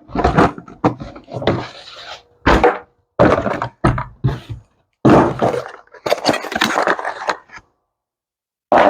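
Unboxing noise: a run of knocks, scrapes and rustles as an RC truck is handled and pulled out of its box and packaging. The sounds stop about a second before the end.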